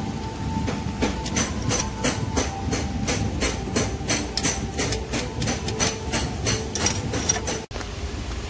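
Ratchet wrench clicking in a steady run of about four clicks a second as cylinder head bolts are tightened down.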